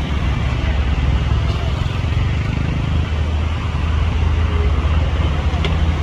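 Steady low engine rumble of a running vehicle or machine, with a noisy hiss above it.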